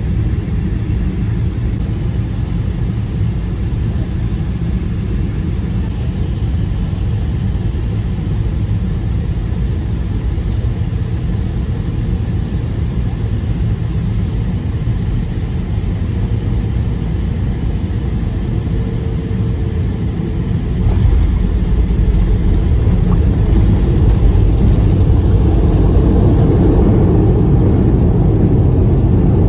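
Cabin noise of a Boeing 737-500 on final approach: a steady low rumble of airflow and its CFM56-3 engines. About 21 seconds in the noise jumps up suddenly as the plane touches down and rolls out on the runway, growing louder toward the end.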